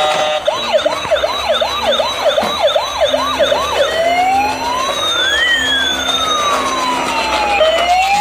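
A toy fire truck's electronic siren sounding. For the first few seconds it gives a fast yelp of repeated rising sweeps, about three a second, then it switches to a slow wail that rises and falls.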